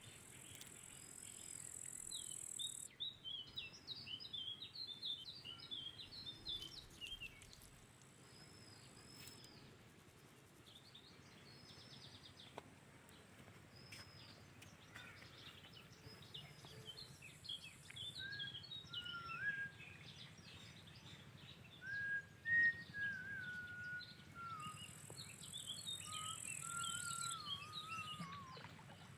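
Birds chirping and calling, with many quick twittering notes and, later, whistled falling and wavering notes. A high, steady insect buzz starts and stops three times.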